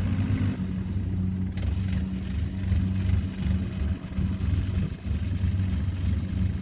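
Kubota DC70 combine harvester's diesel engine running steadily, a low even drone.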